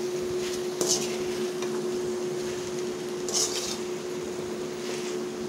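Steel ladle stirring and scraping cubed pumpkin in a metal kadai, with brief scrapes about a second in and again past three seconds, over a steady hum.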